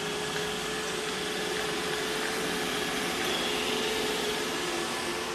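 Steady machine hum with a hiss, running evenly without a break.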